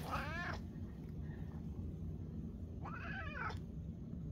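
Bombay cat meowing twice: a short meow right at the start and a second, arching meow about three seconds in. He is hungry, fasted before dental surgery, and asking for food.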